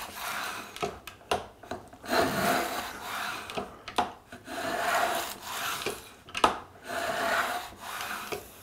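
Metal core box plane cutting along a wooden board in repeated passes: about four rasping strokes of roughly a second each, each peeling off one shaving, with a sharp click between strokes as the plane is drawn back.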